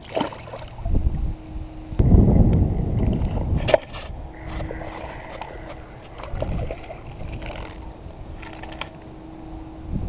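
Wind buffeting the camera microphone, loudest for a couple of seconds in the middle, over a faint steady hum. Right at the start there is a short splash as a small largemouth bass is dropped back into the pond.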